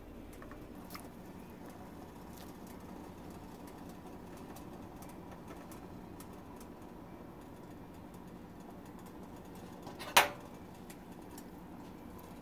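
Faint kitchen handling noise over a steady low hum, with a few light ticks, then one sharp metal clink about ten seconds in as a metal ladle knocks against a pot of noodle soup.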